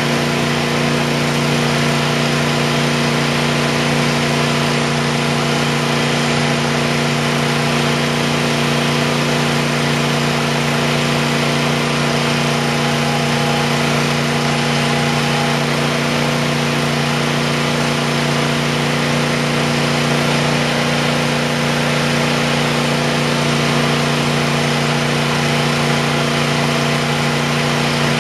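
Stanley CH7 chipper shredder's 270 cc single-cylinder engine running steadily at constant speed with no load, on its first start-up, turning the heavy cutting flywheel, which has no clutch to disengage it. It runs evenly, the sign of a healthy first start.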